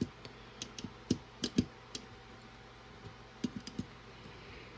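Plastic LEGO pieces clicking and tapping as they are handled and fitted together, in scattered irregular clicks with a small cluster a little past halfway.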